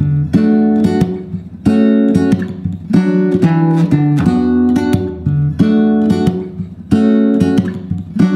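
Background music: an acoustic guitar strumming chords in a steady, even rhythm, with the chord changing about once a second.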